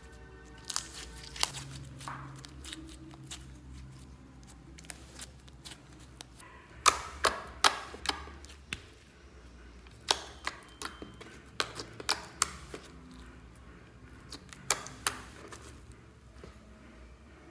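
Hands squeezing and pressing soft sprinkle-and-glitter slime, giving sharp sticky clicks and pops in several short clusters.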